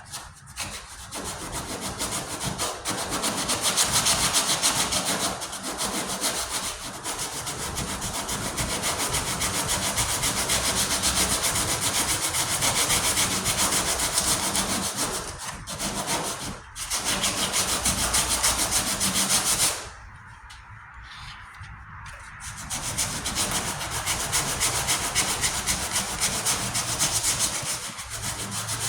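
Coarse 40-grit sandpaper scraping steadily back and forth over filler primer on a steel tailgate patch, taking the high spots down. It stops briefly twice a little past halfway, then pauses for a couple of seconds before resuming.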